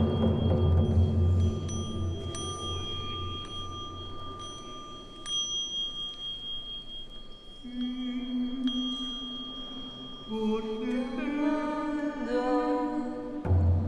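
Metal singing bowl struck a few times, ringing with thin steady high overtones, over a frame drum's low rumble that dies away in the first few seconds. Near the end a voice hums sustained notes that step upward in pitch.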